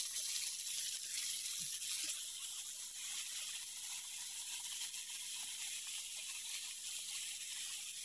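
Cuttlefish sizzling in melted butter on a hot griddle pan: a steady high hiss with faint crackles.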